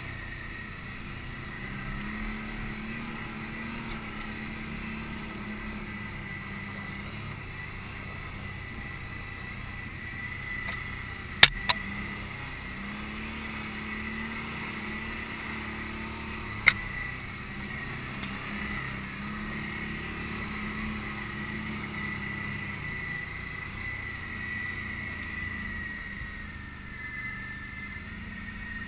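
Can-Am Outlander ATV engine running under a rider, its pitch rising and falling in slow swells as the throttle changes, with a steady high whine over it. Three sharp knocks stand out: a quick pair about halfway through and one more some five seconds later.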